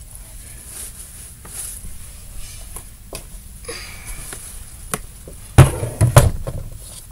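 Knocks and thuds of supplies being handled and set down while sorting slime-making things, a few light ones and then two loud ones about five and a half and six seconds in.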